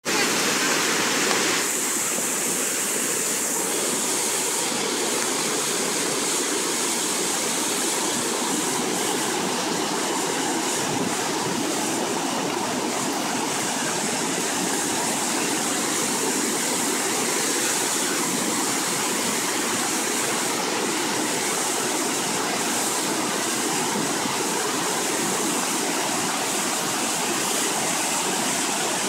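A river in flood pouring over a weir: a steady rush of churning whitewater.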